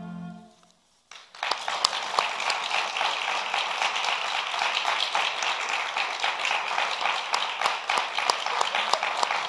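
The viola and cello's final held chord fades out. After about a second of silence, an audience breaks into applause, with steady clapping to the end.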